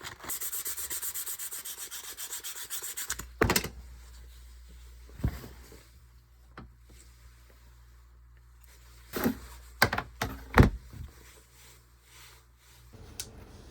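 Wood being rubbed by hand with fast, even back-and-forth strokes for about three seconds, then several separate knocks as the wood is handled.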